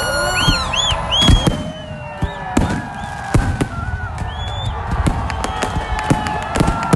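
Fireworks display: aerial shells bursting in a run of sharp bangs, coming thicker in the second half, over high whistling tones.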